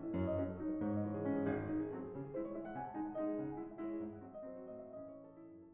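Piano music playing, fading out near the end.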